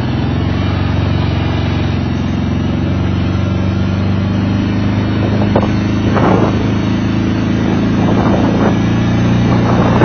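Four-wheeler (ATV) engine running at a steady pitch as the quad drives across a grassy field.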